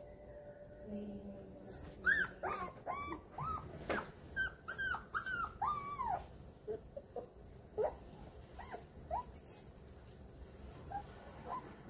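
Four-week-old golden retriever puppies whining and yipping: a run of high-pitched, arching cries about two a second for a few seconds, then fainter, scattered ones.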